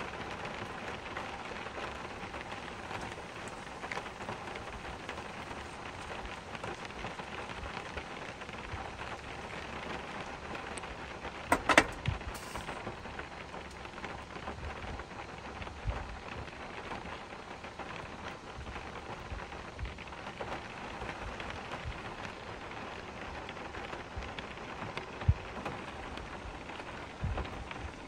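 Steady rain, an even hiss of falling drops. A sharp double knock about twelve seconds in is the loudest sound, with a few softer thumps later on.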